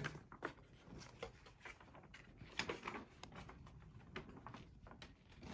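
Faint rustling and crackling of a folded paper poster being unfolded by hand, many small crinkles with no steady rhythm.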